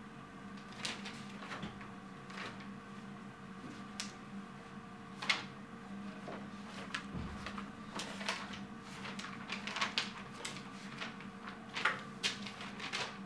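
Paper rustling and pages being turned, with light handling noises on a desk, as short irregular rustles and taps over a steady low hum.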